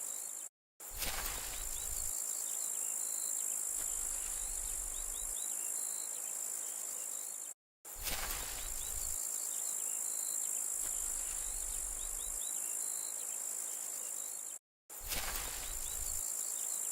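Insect chorus with a steady high-pitched buzz and faint repeated chirps, cut off by a brief dead silence three times, about every seven seconds.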